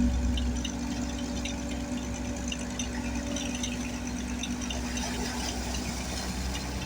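An engine running steadily at an even speed, with a low hum and light rattling ticks over it.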